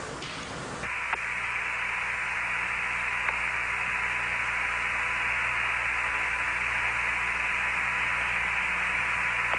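Static hiss of an open Apollo air-to-ground radio channel, steady and narrow-band like a radio link. It comes in abruptly about a second in, with a faint steady tone and a low hum under it.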